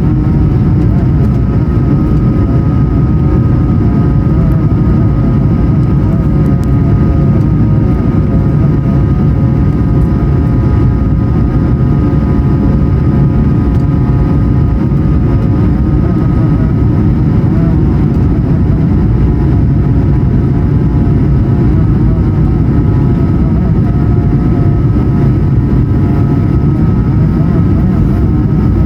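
Airbus A220 cabin noise: a steady low rumble of its Pratt & Whitney PW1500G geared turbofan engines and rushing air, with steady whining engine tones over it.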